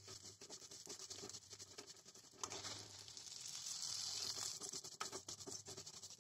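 Plastic spoon stirring and scraping dry vermicelli around a metal kadai, faint and irregular, with the strands rustling and clicking as they are turned while they toast in a little ghee.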